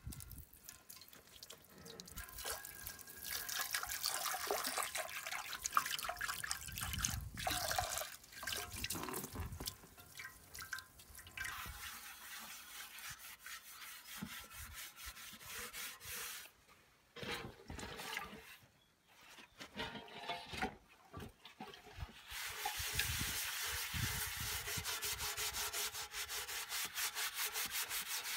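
Vinegar pouring and splashing into a plastic tub over a rusty cast-iron toilet cistern. Near the end, the wet cast iron is scrubbed in the vinegar bath with quick, even, rhythmic strokes.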